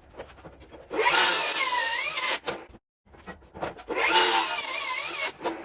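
Handheld electric power tool cutting into a green oak beam in two bursts of about a second and a half each, its motor pitch dipping and wavering under load.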